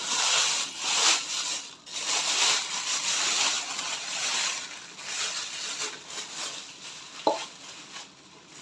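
Crinkling and rustling as a bowl of rising dough is covered over, in uneven swells for about five seconds and then fading, with one short knock about seven seconds in.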